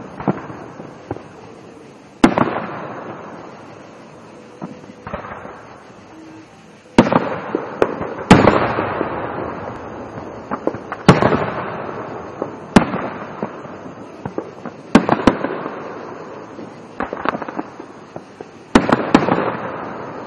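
Aerial fireworks shells bursting, about nine sharp bangs a second or several apart, each with a long fading echo, and smaller pops and crackles in between.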